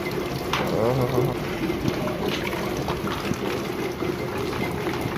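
Steady rain with water pouring down from above, splashing onto a wet concrete floor and into buckets.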